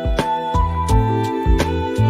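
Background music: held melody notes over a bass line, with a steady beat.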